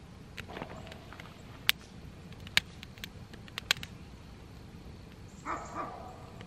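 Wood fire crackling in a fire pit, with several sharp pops. Near the end a dog gives a brief two-part whine.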